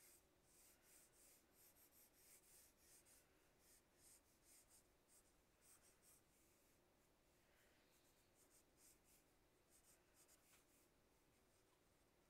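Faint scratching of a wooden pencil sketching on paper, in many short strokes, busier in the first half and sparser toward the end.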